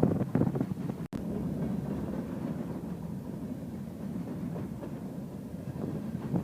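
Train passing on the rails, a steady rumble of the moving cars, with the audio cutting out for an instant about a second in.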